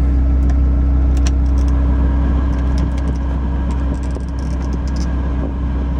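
2001 Dodge Viper RT/10's 8.0-litre V10 idling steadily, with a few light clicks over it.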